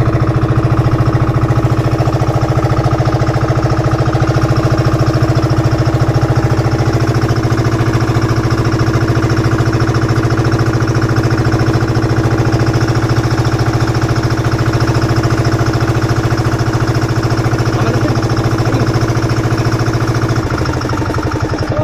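Engine of a motorized outrigger boat (bangka) running steadily under way, a loud even chugging hum. It eases off slightly near the end.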